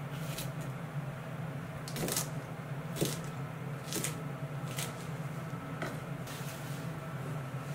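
Kitchen knife cutting turnip and green stems on a wooden cutting board: separate knocks of the blade against the board, roughly one a second, over a steady low hum.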